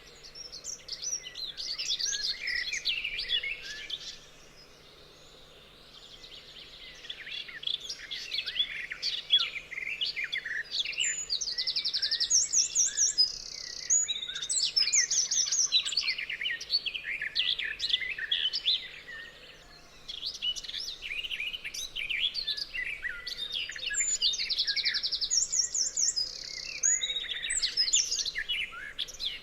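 Several songbirds singing at once, a busy chorus of chirps and quick trills, with one rapid buzzy trill repeating twice. The singing eases off briefly twice.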